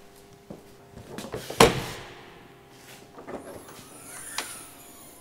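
A Mercedes-Benz Sprinter van's rear luggage compartment door being handled and opened: scattered clicks, one loud thump about one and a half seconds in, then a latch clicking and a faint high hiss as the door opens near the end.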